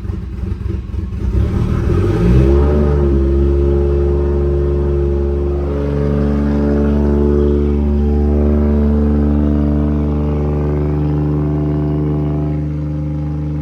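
Toyota Mark II JZX100's inline-six engine running loud through a newly fitted Tomei Ti exhaust, uneven and choppy at first, then settling into a steady idle about two seconds in. The owner puts the rough running down to unfinished intercooler piping.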